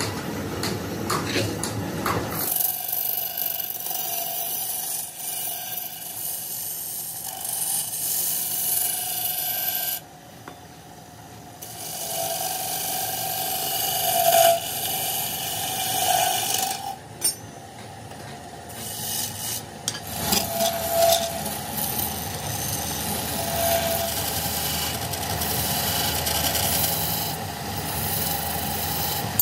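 Wood lathe running while a hand chisel cuts and scrapes a spinning wooden pot blank, giving a steady scraping hiss of wood being turned. The cutting stops for a couple of seconds about ten seconds in, then starts again.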